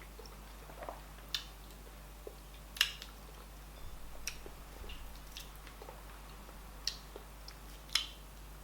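Close-up mouth sounds of a person eating fufu and oha soup: quiet chewing with a scattering of short, sharp wet smacks and clicks, the loudest about three seconds in and near the end.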